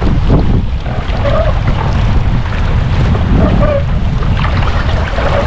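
Strong wind buffeting the microphone over the rush of water from a sailing boat under way, with a few short faint squeaks.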